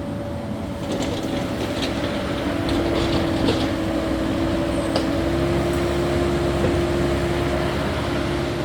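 Caterpillar 308E2 mini excavator running steadily while digging and moving dirt, with a constant whine over the engine drone and a few light clicks.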